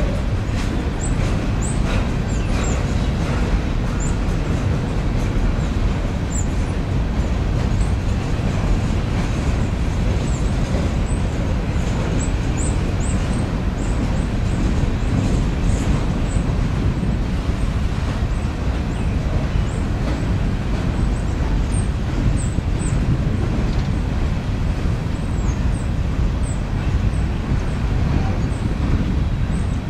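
Coal train's freight cars rolling slowly across a steel girder railway bridge: a steady rumble of wheels on rail, with scattered faint high squeaks.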